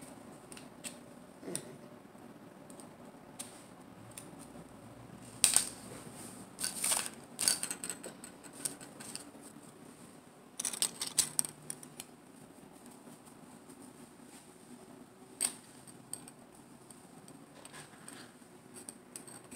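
Scattered clicks and clatters of small hard plastic toy pieces being handled on a tabletop: the broken shell pieces of a Smashers toy egg being fitted back together. A few short clusters of clicks come with quiet pauses between them.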